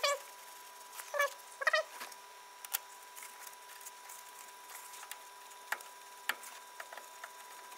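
Brake caliper worked by hand over the pads onto its bracket: a few short squeaks in the first two seconds, then scattered light metal clicks.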